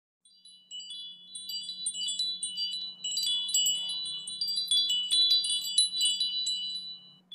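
Chimes tinkling: many quick high ringing notes overlapping, over a faint low steady drone.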